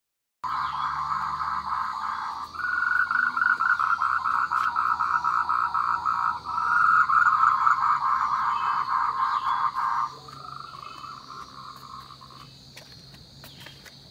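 Moltrecht's tree frogs calling: loud, rapid rattling pulse trains from several frogs overlapping. The calling starts about half a second in, is loudest in the middle, drops after about ten seconds and dies away near the end, over a steady high-pitched hiss.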